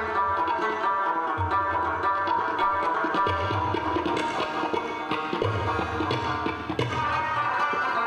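Afghan rubab and tabla playing together: quick plucked rubab strings ringing over a running tabla pattern. Deep bass strokes from the larger drum sound at intervals, most strongly about a second and a half in, about three and a half seconds in, and around five and a half to six and a half seconds in.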